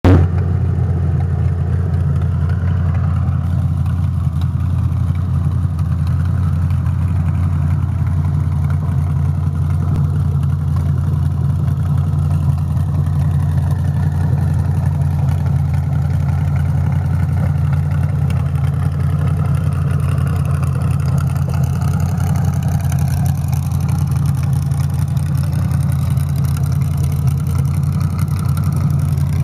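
Hot-rodded 1927 Ford roadster's engine idling steadily through open, unmuffled chrome headers.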